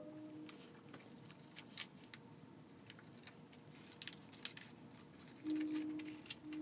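Baby raccoon eating cat food from a paper bowl, with soft, irregular clicks and smacks of chewing and of its snout pushing the bowl on brick. About five and a half seconds in, a louder steady low hum starts, breaks briefly and goes on.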